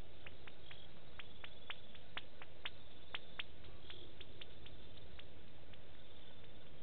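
Night-time bush ambience: irregular sharp clicks, busiest in the first half, and a few short high insect chirps over a steady hiss.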